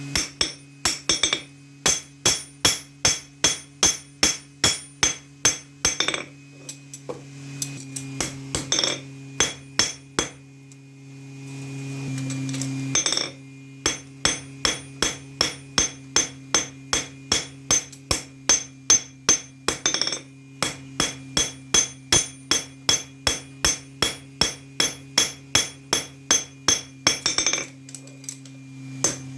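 Hammer blows on steel over an anvil, about two a second, each with a bright metallic ring, as a knife blade is forged. The blows stop for about three seconds near the middle while a steady low hum underneath grows louder, then resume.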